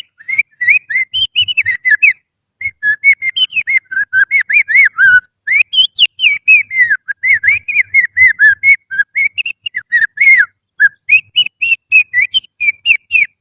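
Little-finger whistle imitating the song of an oriental magpie-robin (kacer): a fast run of short, sharply rising and falling whistled notes, with a couple of brief breaks. It is used as a lure song to get a caged magpie-robin singing.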